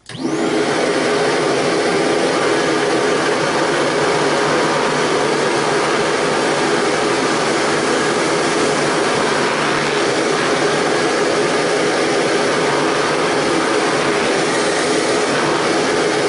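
Canister vacuum cleaner with a two-fan motor running at full suction, its motorized power-head brush on as it is pushed over carpet and bare floor. It comes in abruptly at the start and then holds a steady, even rushing drone.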